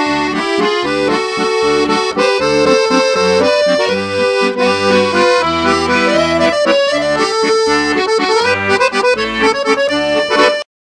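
Accordion music: a lively tune of held chords over a repeating bass line, which cuts off abruptly shortly before the end.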